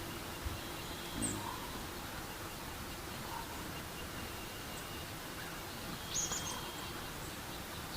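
Forest ambience: a steady outdoor hiss with faint, scattered bird chirps, the clearest a short chirping burst about six seconds in.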